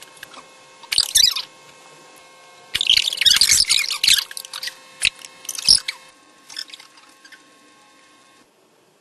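Several bursts of high-pitched squealing giggles, the longest about a second and a half near the middle, fading into smaller squeaks.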